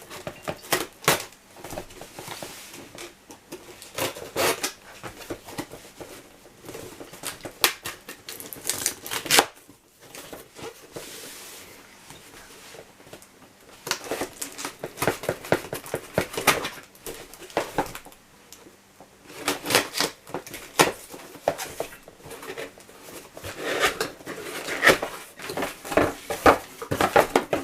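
A cardboard parcel being opened by hand with scissors: irregular snips, tearing and crackling of tape and packaging, with a quieter stretch about ten seconds in.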